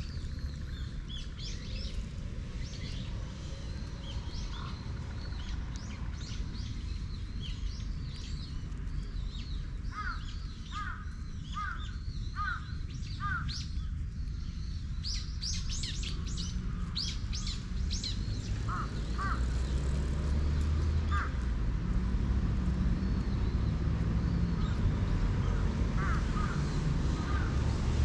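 Outdoor birds chirping and calling, with a run of five evenly spaced calls about ten seconds in, over a low rumble that grows louder about two-thirds of the way through.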